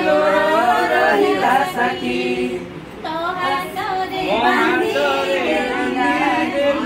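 A group of women singing a Raksha Bandhan (rakhi) song together in Odia, unaccompanied, with a short break about three seconds in.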